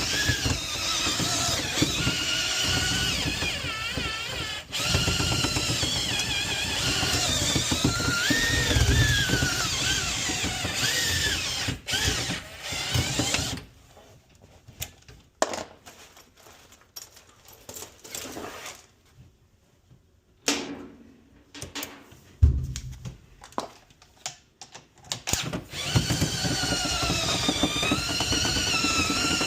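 Power drill running a rotary brush in a dryer vent duct, its whine wavering in pitch as the load changes. It stops about halfway through, leaving scattered clicks and knocks, then starts again near the end.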